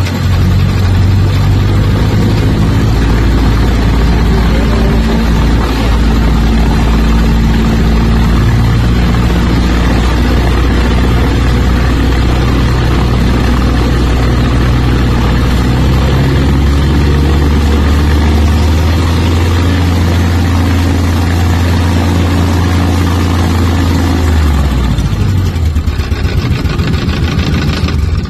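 Viking 130 aircraft engine, a Honda-based 1.5-litre four-cylinder, idling steadily with its cowling off; near the end its note drops. The engine is pushing oil out of its breather, which the owner suspects is a failed piston ring.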